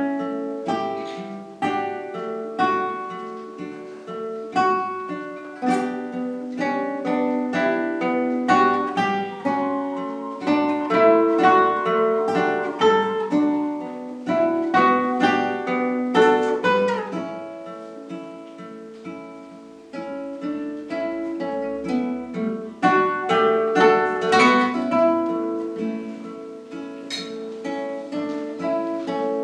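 Two classical guitars playing a duet: a continuous run of plucked notes and chords, with a softer passage about two-thirds of the way through.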